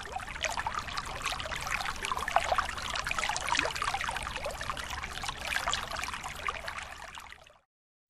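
Shallow creek water running and splashing, a busy babble of small splashes that cuts off abruptly about seven and a half seconds in.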